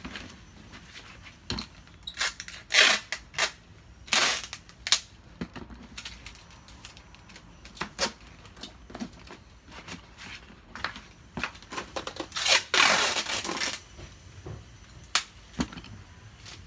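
Cardboard box being handled and closed, with sharp knocks and rustles of the flaps, and packing tape ripped off a handheld tape dispenser: short pulls about four seconds in and one longer, rasping pull later on.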